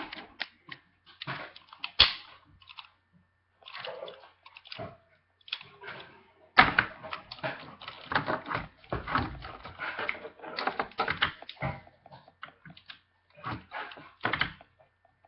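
Plastic White Tigerzord toy being handled, with its parts making many irregular clicks and knocks. They come sparsely at first and crowd together in the middle.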